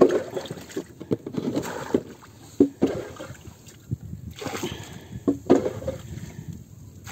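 Irregular knocks and clatters of gear being handled inside a small wooden boat as fishing line is worked by hand.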